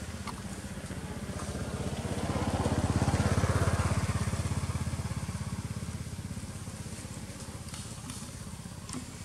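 A motor vehicle passing by: a low, pulsing engine sound that grows louder to a peak about three seconds in, then fades away.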